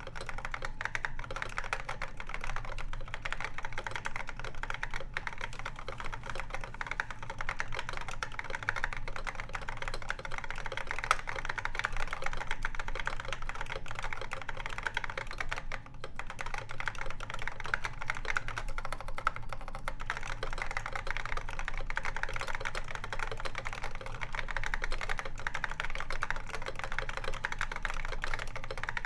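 Continuous fast typing on an IBM Pingmaster vintage keyboard with SKCC Green (complicated Alps) switches, a dense run of key clicks with a brief pause about halfway through.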